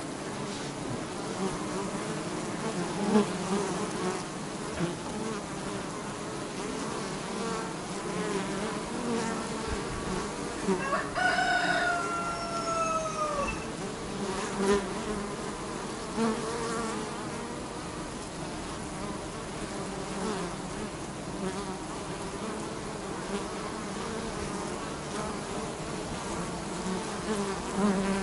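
A dense, steady buzzing of many honeybees at the hive entrance. About eleven seconds in, a rooster crows once, a drawn-out call that falls in pitch at the end.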